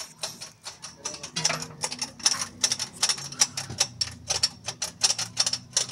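Rapid, irregular clicking, several sharp ticks a second, with a faint low hum coming in after about a second and a half.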